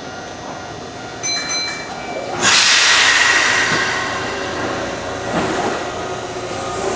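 Kintetsu 3200 series electric train at a station: a brief high tone about a second in, then a sudden loud rush of train noise from about two and a half seconds that slowly fades.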